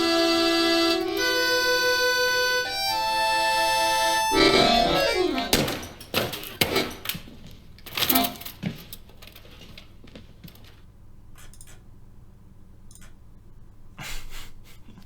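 Music with a reedy, accordion-like melody of held notes that stops about four seconds in. It gives way to a few seconds of sudden noisy hits and falling tones, then low sound with a few faint clicks.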